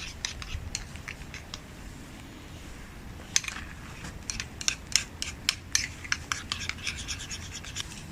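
Irregular scraping and sharp clicking strokes, a few at first and then coming thick and fast from about halfway through.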